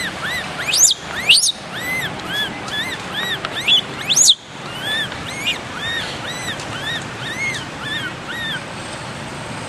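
Baby long-tailed macaque giving distress cries: a rapid run of short, arching squeals, about two a second, broken by a few shrill rising screams in the first half. The squeals stop near the end.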